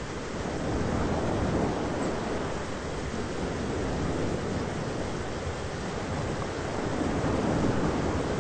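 Thunderstorm ambience: a steady low rush of storm noise that swells and eases over a few seconds.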